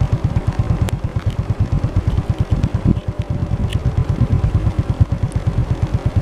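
A motor vehicle's engine running with a fast, even low throb, with a few faint clicks over it.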